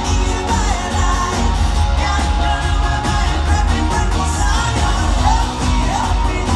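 A live pop-rock band playing loud amplified music with a lead singer and heavy bass, heard from the crowd in an arena.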